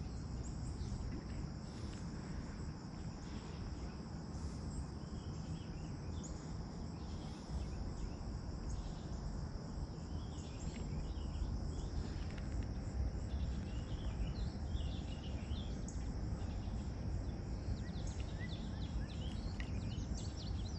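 Steady outdoor insect chorus, with birds chirping more and more from about halfway through, over a low steady rumble.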